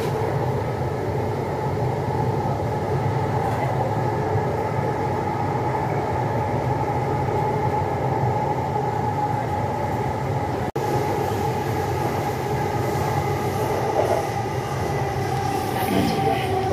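Metro train car running, heard from inside the carriage: a steady rumble with a faint whine on top. The sound cuts out for an instant about two-thirds of the way through.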